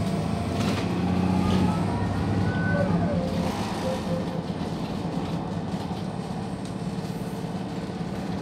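Onboard sound of a Van Hool NewA309 city bus with its MAN D0836 diesel engine and ZF automatic gearbox running while under way: a steady engine drone, with a thin rising whine over the first three seconds that then drops, after which the bus runs a little quieter.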